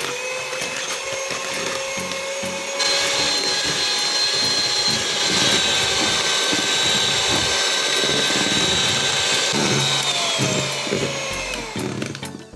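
Electric hand mixer running at high speed, its beaters whisking eggs and sugar in a plastic bowl: a steady motor whine over a whirring rush. It gets louder about three seconds in and falls in pitch near the end as it winds down. The eggs are being beaten until pale and thick enough to leave a trail.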